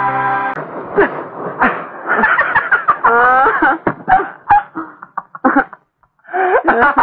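Loud, high-pitched human laughter in repeated bursts, breaking off briefly about six seconds in.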